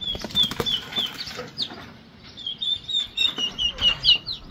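Young turkeys peeping, many short high calls a second, with wings flapping and scuffling as they are grabbed by hand in their pen.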